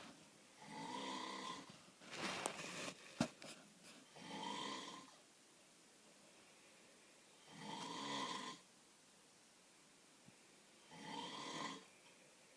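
Snoring: four slow, drawn-out snores roughly three and a half seconds apart, each a pitched rasp lasting about a second, with a short burst of noise and a sharp click between the first two.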